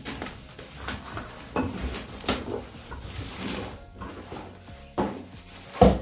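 Packaging of a knife block set being opened and handled: irregular knocks, clicks and rubbing, with one sharp knock near the end.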